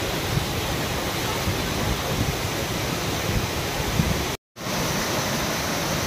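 Tall waterfall plunging onto rocks: a steady rush of falling water. The sound cuts out for a moment about four and a half seconds in.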